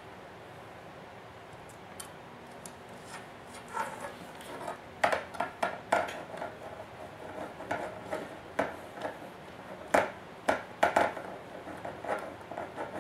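Hand screwdriver driving a small screw through an RC model truck's servo mount into its chassis rail: irregular sharp clicks and scrapes of the bit and parts, starting about four seconds in.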